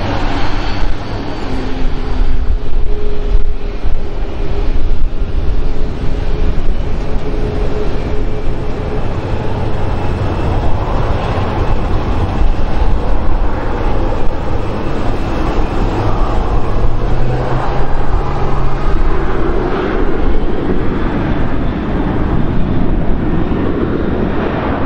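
Jet engines of a Boeing 737-800 airliner running as it taxis, a steady low rumble with wind on the microphone.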